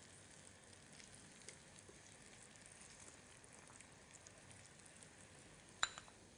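Garlic, fat and vinegar sauce boiling gently in a frying pan: a faint, even sizzle with small crackles. A sharp clink near the end.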